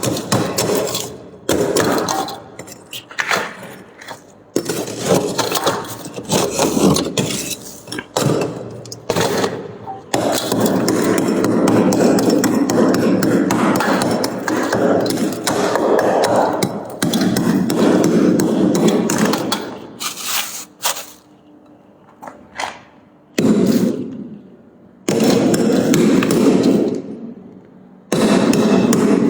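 Freezer frost and shaved ice crunching and scraping close to the microphone. Quick sharp knocks come first, then spells of dense crackling a few seconds long with brief breaks between them.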